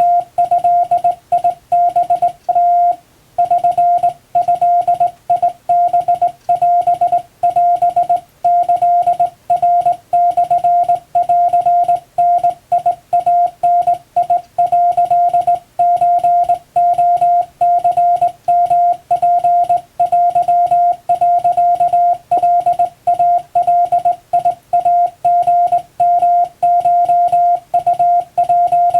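Japanese Wabun Morse code sent on a hand key: a single steady mid-pitched beep keyed on and off in dots and dashes, with a short pause about three seconds in.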